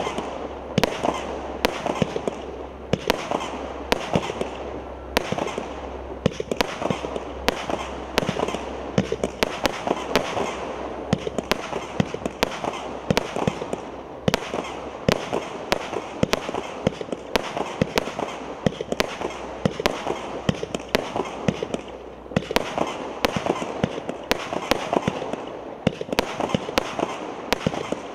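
A 49-shot 0.6-inch consumer fireworks cake ('White Snowflakes') firing shot after shot: sharp reports about one to two a second, over steady crackling from the bursting glitter stars.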